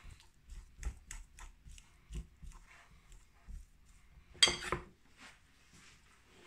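Metal fork mashing soft boiled potatoes in a glass bowl: faint, irregular scrapes and clicks of the tines against the glass, with one louder clink about four and a half seconds in.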